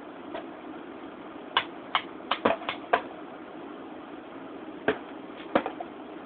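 Sharp metallic clicks and taps from lead-casting tools being handled on a metal bench: a quick run of them in the second and third seconds and a few more near the end, over a steady low hum.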